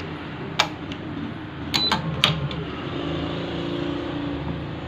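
Four sharp metallic clicks from a badminton stringing machine's string clamps and fittings being set, all within the first two and a half seconds, followed by a low steady hum.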